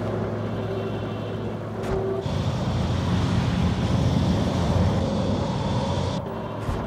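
Sound effect of a hovering robot tank: a steady low mechanical hum that swells about two seconds in into a louder rushing engine noise with a hiss on top, falling back to the hum about a second before the end.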